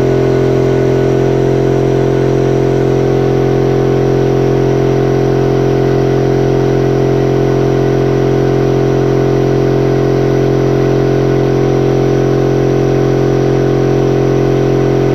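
Electric air compressor running steadily, a loud even motor-and-pump hum with no change in pitch.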